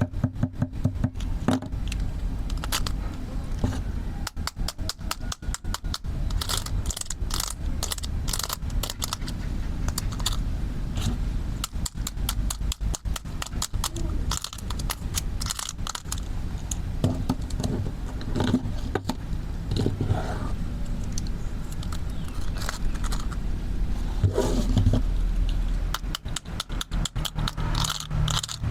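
Plastic toy tools being handled: many sharp clicks and taps with some scraping of hard plastic, including fast runs of clicking near the start and again near the end.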